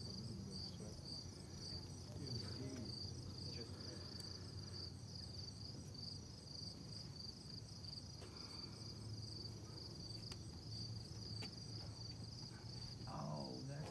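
Faint, steady insect chorus: a high, rapidly pulsing trill that never stops, over a low rumble.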